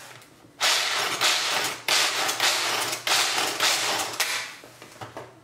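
Pistachios being chopped in a small manual food chopper: the nuts rattle and crunch against the blades in a run of rough strokes, about two a second. The strokes start under a second in and stop about four seconds in.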